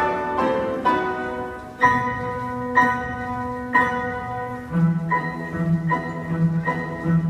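Background music: gently struck, ringing notes about once a second, with a low held bass note joining partway through.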